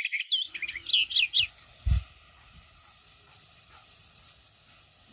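Birds chirping rapidly, in quick high repeated calls, for about the first second and a half. A single dull thump comes about two seconds in. After it there is a faint, steady sizzle from the clay curry pot over the wood fire.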